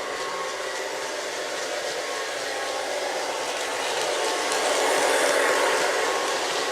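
Lionel O-gauge Alco S4 switcher locomotive running along the track: a steady motor hum with wheels rolling on the rails. It grows louder about four seconds in and eases off again after about six seconds.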